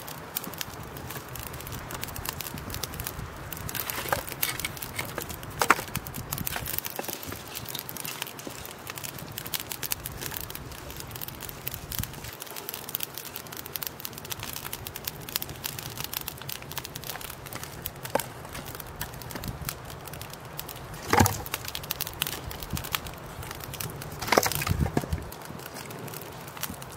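Campfire of dry twigs and split kindling crackling as it catches and flares, a steady patter of small snaps, with a few louder knocks scattered through.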